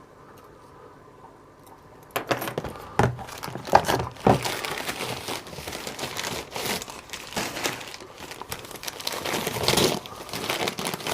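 Packaging crinkling and rustling as locks are taken out of a parcel and handled, starting about two seconds in, with several sharp clicks and knocks, the loudest around three to four seconds in.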